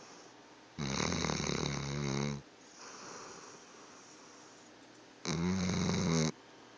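A sleeping dog snoring loudly: two long, buzzing snores, the first about a second and a half long and the second about a second, with a quieter breath between them.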